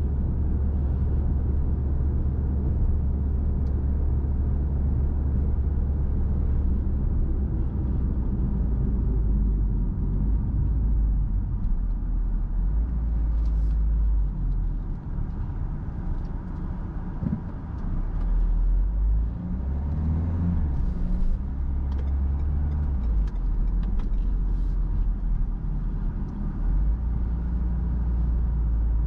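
A car being driven: a steady low rumble of engine and road noise, easing off for a few seconds about halfway through.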